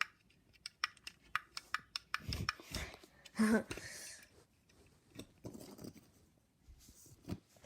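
Elevator push buttons being clicked repeatedly, about five clicks a second. Then comes irregular handling and rustling noise with a brief low vocal sound.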